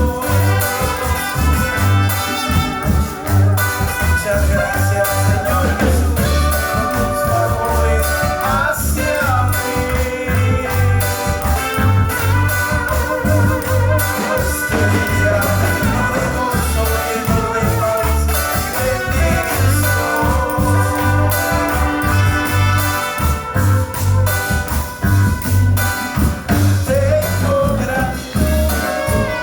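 Music with a heavy, regular bass beat, busy percussion and a melody line over it.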